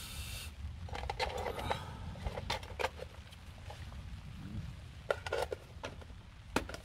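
A small Lixada folding gas camp stove being folded up and packed into its box: a short rustle or scrape at the start, then a scatter of light clicks and knocks.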